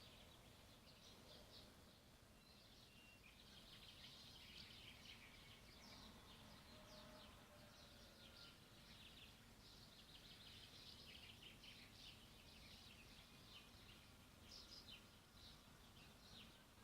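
Faint dawn chorus of small birds chirping and singing, with many short calls overlapping throughout.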